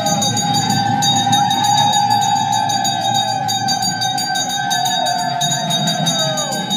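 Temple bells ringing continuously, a steady metallic ring over a low crowd murmur.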